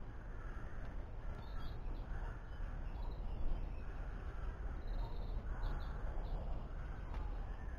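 Crows cawing in a series of short calls, about one every second, over a low steady rumble.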